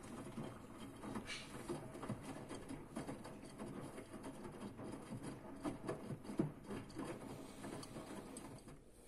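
Front-loading washing machine drum turning during a wash, wet laundry tumbling and slapping with water sloshing in irregular splashes. The drum comes to rest near the end and the sound dies down.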